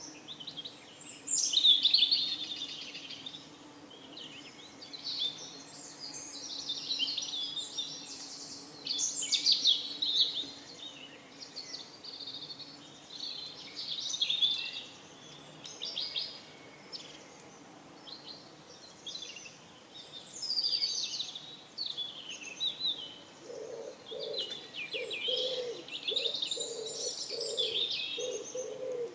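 Small songbirds chirping and singing in short phrases every few seconds over faint background noise. About three-quarters of the way through, a pigeon starts cooing in a low, evenly repeated series.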